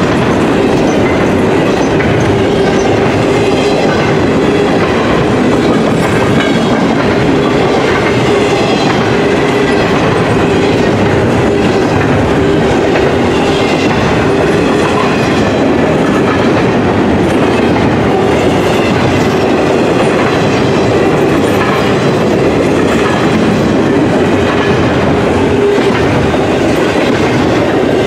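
Double-stack intermodal freight train rolling past at close range: a steady, loud rolling noise of steel wheels on rail from the passing well cars, with a steady hum running under it.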